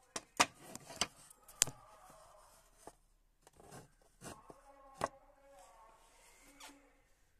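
Sharp knocks and clicks of handling on a wooden workbench: a quick cluster in the first two seconds, a few softer ones, and another sharp knock about five seconds in, over faint background murmur.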